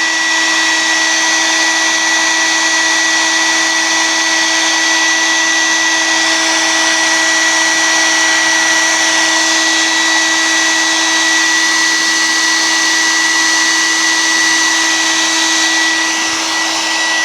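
Handheld hairdryer running steadily, a continuous rush of air with a fixed motor whine.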